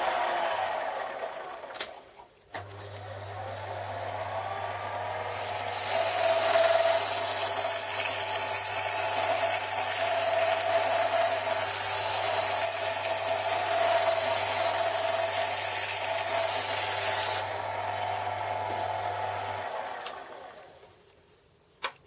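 Lathe turning a boring bar down to size: the motor hum drops out briefly about two seconds in and picks up again, then a loud hissing cut with a steady tone runs from about six to seventeen seconds in. After that the lathe runs more quietly and stops a couple of seconds before the end.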